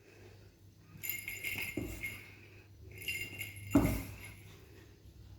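Small bell jingling in two shaken bursts of about a second and a half each, with a soft knock in each, as kittens play in and around a cardboard box.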